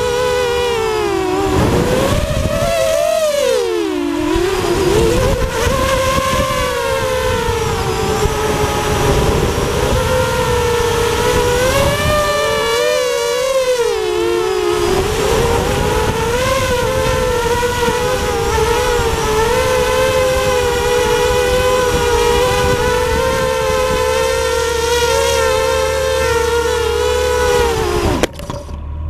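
FPV quadcopter's electric motors whining, heard from the camera on the quad itself. The pitch rises and falls with the throttle and holds fairly steady through the later part. Near the end the whine drops sharply and cuts off as the quad lands on a Jeep's roof.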